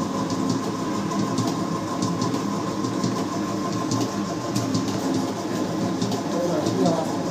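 Commercial Mughal stand mixer running, its wire whisk beating sponge-cake batter in a steel bowl: a steady motor hum with a light, irregular rattle.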